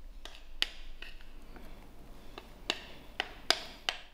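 A spoon tapping and clinking against the dishes as cake batter is scraped from a bowl into a mug: about eight sharp, irregular taps, several with a brief ringing tone.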